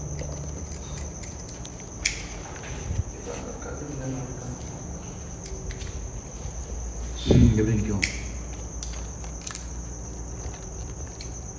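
Crickets trilling in a steady high drone, with a couple of sharp clicks and a brief low voice about seven seconds in.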